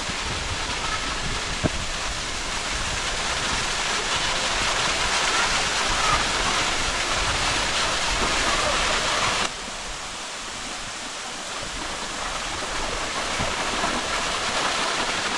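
Waterfall running: a steady, loud rush of falling water that swells slightly, then drops abruptly in level about two-thirds of the way through.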